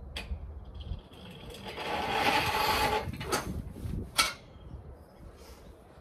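A large round hay bale tipping over: a rushing scrape and rustle of hay and net wrap for a second or so, then a sharp knock about four seconds in.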